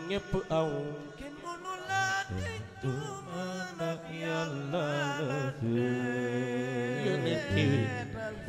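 Sung Islamic devotional chant: a voice holding long, wavering melismatic lines over a steady low tone.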